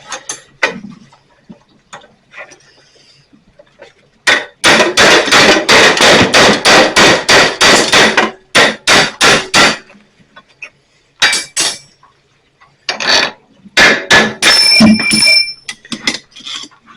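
Hammer striking a steel punch driven into a hole in a metal fence rod held in a vise, widening the hole: a rapid run of blows about five a second, then a few scattered strikes, the last ones ringing.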